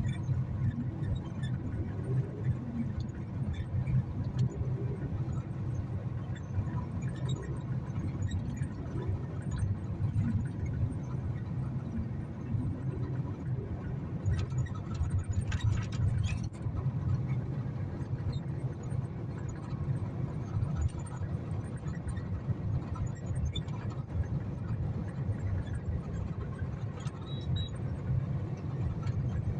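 Strong storm wind buffeting the microphone in a low, uneven rumble, with a brief rattle about halfway through.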